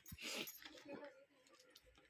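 Rustling and light clicking of the Boya M1 microphone's accessories and packaging being handled, loudest just after the start and fading to faint scattered clicks.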